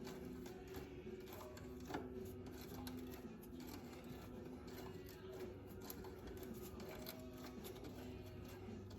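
Faint scattered clicks and light rattles of hand work as the old rear brake cable is unthreaded at the ATV's rear brake drum, over a faint steady hum.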